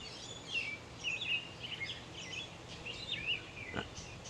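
Songbirds singing: a continuous run of short chirps and quick warbling phrases from more than one bird, over faint outdoor background noise. A single sharp click comes shortly before the end.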